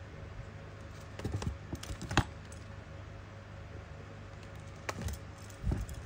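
Handling noise from boxed Zippo lighters being moved about: a few light clicks and knocks in small clusters, the sharpest about two seconds in, over a steady low hum.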